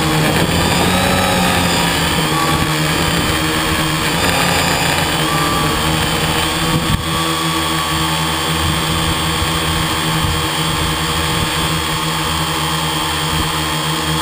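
Radio-controlled model aircraft's motor running steadily, heard through the camera mounted on the aircraft, with a steady hum and a wavering higher whine.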